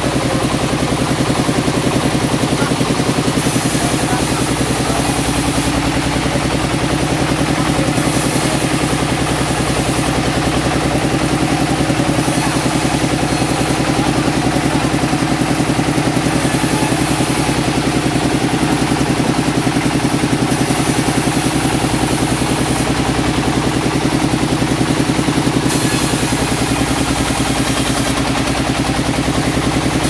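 A sawmill's engine running steadily at one speed with a fast, even beat.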